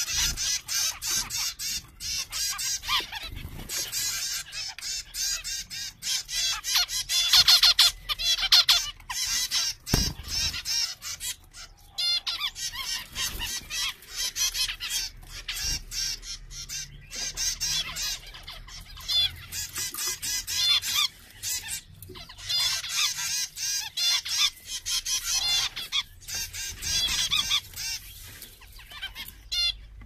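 A group of zebra finches calling over one another: a dense, unbroken stream of short, high calls.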